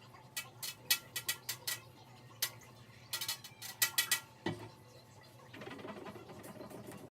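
Hard household items clinking and clattering in quick irregular strikes while someone tidies up, followed by a dull knock and then a steady rustling noise near the end.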